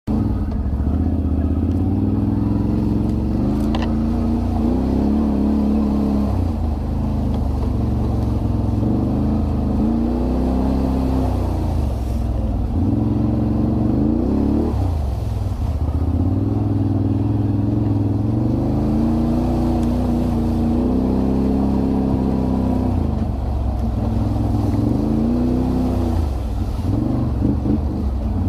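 Off-road vehicle engine running under changing throttle, its pitch rising and falling over and over. A single sharp click sounds about four seconds in.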